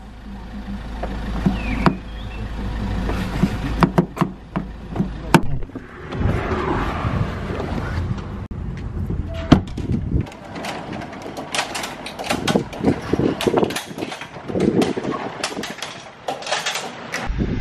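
Car door handle clicks and door knocks over the low rumble of a vehicle, which stops about ten seconds in, followed by scattered knocks and clatter.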